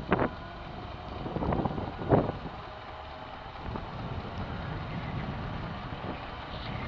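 Super Turbo 800 electric scooter riding on asphalt: a steady motor hum and tyre noise with wind on the microphone, and a few knocks in the first two seconds.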